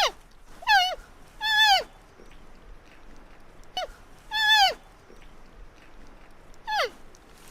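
Panda cub calling: about five short, high-pitched cries in an irregular series, each holding its pitch briefly and then sliding down. The first few come close together, with longer gaps near the end.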